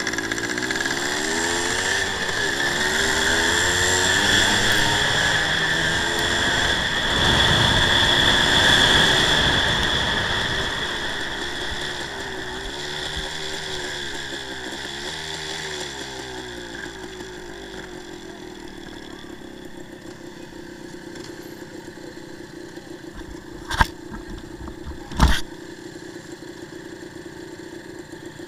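1984 Suzuki TS185 two-stroke single-cylinder engine running while the bike is ridden on a dirt track, its pitch rising and falling with the throttle. About two-thirds of the way in it drops back to a steady idle. Two sharp knocks come near the end.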